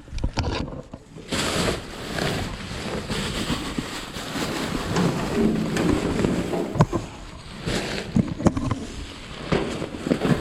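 Clothing and other items being rummaged through and handled: uneven rustling, with a few sharp knocks.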